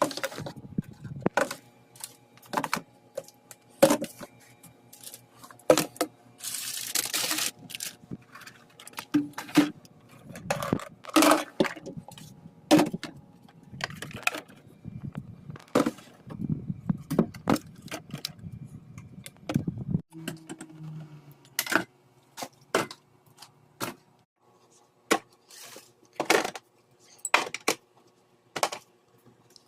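Repeated clinks, knocks and rattles of dishes and containers being handled, with a hiss lasting about a second, about seven seconds in.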